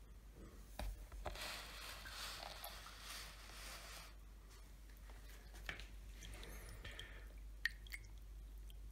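Faint splashing and sloshing of water in a plastic tub holding live fish, with scattered small wet clicks and knocks. The splashing is strongest from about one to four seconds in; near the end a hand lifts a fish out of the water.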